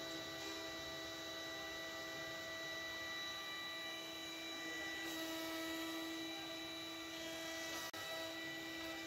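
Multi-spindle CNC wood router running and carving a board, its spindles giving a steady whine over the hiss of the cut. There is a brief break in the sound about eight seconds in.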